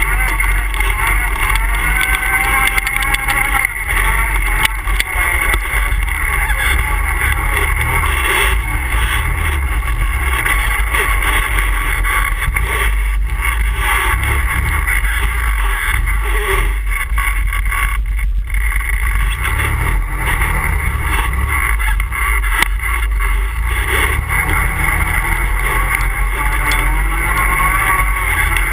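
ATV engine running continuously under riding, its pitch rising and falling slightly with the throttle.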